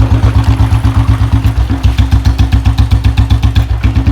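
Royal Enfield Bullet 350 single-cylinder four-stroke engine idling with its steady, even thump of about eight beats a second.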